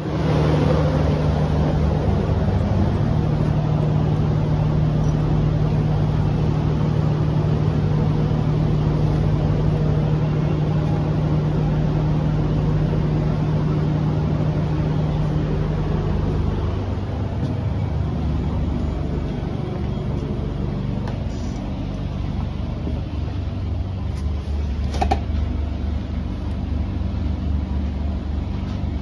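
Steady low hum of a standing diesel passenger train, heard from inside the carriage doorway and aisle. A strong low drone drops away about halfway through, leaving a lower rumble, with a single sharp click near the end.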